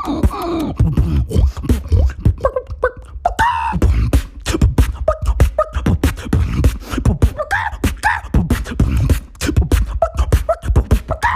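Human beatboxing: a fast mouth-made beat of bass kicks, snares and hi-hat clicks, broken up by short vocalised tones.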